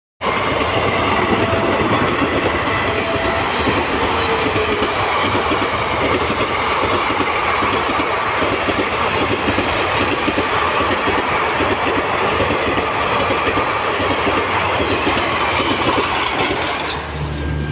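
Indian Railways ICF passenger coaches running past close by at speed: a steady, loud rush of steel wheels on rail with rapid clickety-clack, easing slightly near the end.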